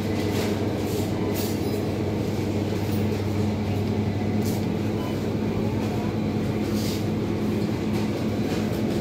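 Steady low machine hum of refrigeration and ventilation equipment, a deep tone and a higher one held evenly throughout, with a few faint soft ticks.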